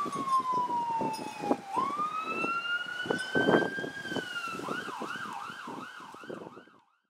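Emergency vehicle siren: a slow wail that falls and then rises and holds, then switches to a fast yelp of about four warbles a second. It fades and cuts off shortly before the end.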